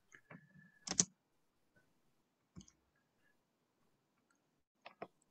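A few sharp computer mouse clicks with quiet gaps between them. The loudest comes about a second in, and two come close together near the end.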